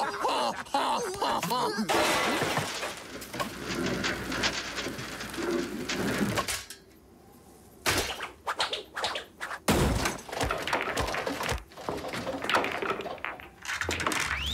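Cartoon slapstick sound effects: a flurry of crashes, clattering and thuds of things being knocked about, with a short lull about seven seconds in before a run of sharp knocks.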